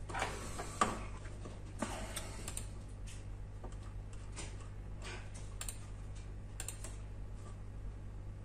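Computer keyboard typing, irregular keystrokes and clicks, over a steady low electrical hum.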